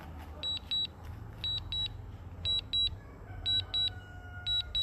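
Drone remote controller's low-battery alarm: high short double beeps repeating about once a second while the drone auto-lands on critically low battery.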